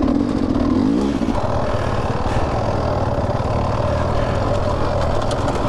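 Off-road dirt bike engine running under throttle at close range, its note changing suddenly about a second in and then holding steady.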